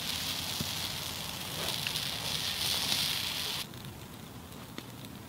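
Outdoor campfire scene: a steady hiss cuts off suddenly about three and a half seconds in, with a few faint crackles of the fire.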